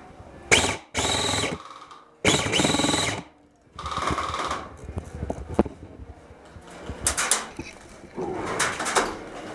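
Airsoft electric rifle firing full-auto in about six short bursts, each a rapid rattle of the motor-driven gearbox cycling. The two longest bursts come about a second and two and a half seconds in.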